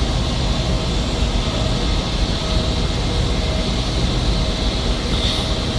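Jet aircraft engines running with a steady, even noise, with faint steady tones inside it.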